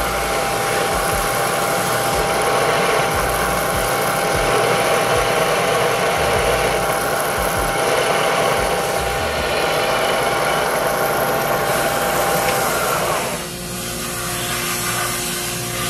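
Bridgeport milling machine spindle driving a twist drill into the aluminium deck of a Toyota 7M cylinder head, a steady whine with cutting noise as it bores a coolant hole. Near the end the whine sags in pitch and the level drops as the bit is drawn out of the hole, leaving a quieter hum.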